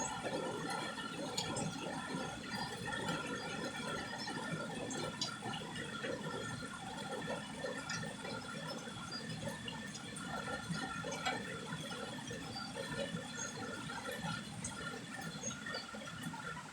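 Water running or splashing steadily, with a fluttering, gurgling texture, and faint steady high-pitched tones over it.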